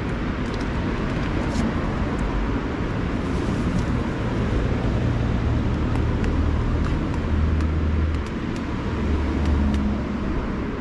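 Road traffic going past, a steady rushing noise with a low rumble that swells about four seconds in and again near the end as vehicles pass.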